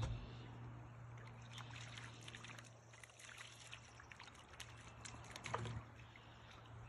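A hooked crappie splashing and thrashing at the water's surface as it is reeled in toward the dock: a quick run of small splashes and clicks over a steady low hum, with a louder splash about five and a half seconds in.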